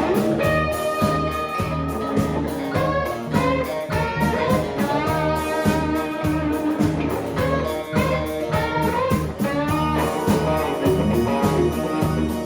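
Live band playing, with a guitar carrying the melody over bass and drums that keep a steady beat.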